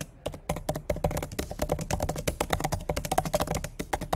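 Fast typing on a computer keyboard: a quick, even run of key clicks.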